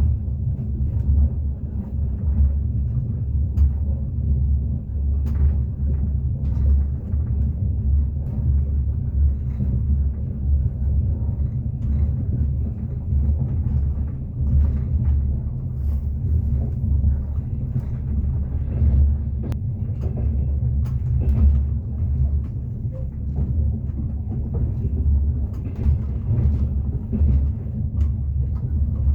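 Moving passenger train heard from inside the carriage: a steady low rumble with scattered clacks of the wheels over the rails.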